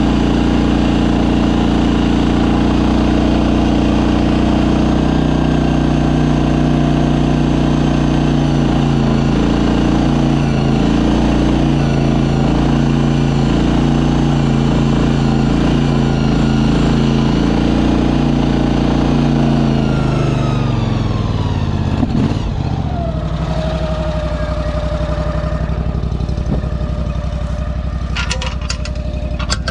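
Shed mover's engine running steadily under way, then throttled down about two-thirds of the way through, its pitch falling over a few seconds to a lower, steady idle. A few sharp clicks near the end.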